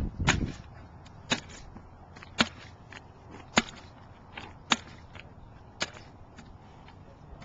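Spring-loaded power stilts landing with each bound: a sharp clack roughly once a second, six strong ones with fainter clicks between, ending about six seconds in.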